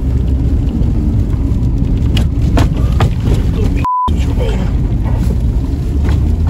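Škoda Octavia 1.9 TDI four-cylinder turbodiesel running while the car drives through deep snow, heard from inside the cabin. The engine drones low and steady under the rumble of the tyres in snow, with scattered knocks. About four seconds in, the sound drops out briefly and there is a short beep.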